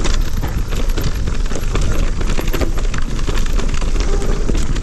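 Electric mountain bike rattling down a bumpy dirt singletrack at speed: constant wind rumble on the handlebar camera's microphone, with many quick, irregular clicks and knocks from the tyres, chain and frame over the rough ground.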